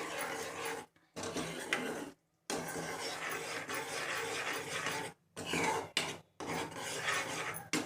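A spoon stirring and scraping thick chana masala gravy in a cooking pan, in several stretches broken by short pauses.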